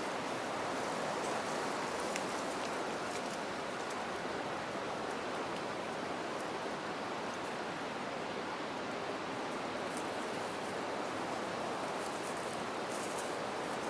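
A steady, even rushing noise outdoors, with a few faint clicks scattered through it.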